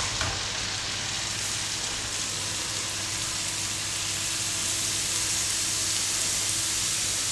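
A batch of semolina dough pieces deep-frying in hot oil in a frying pan: a steady sizzle that grows slightly louder toward the end.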